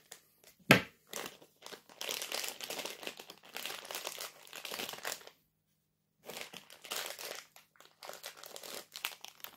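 Clear plastic bag crinkling as it is handled close to the microphone, in two stretches of a few seconds with a short pause between. A single sharp click comes about a second in.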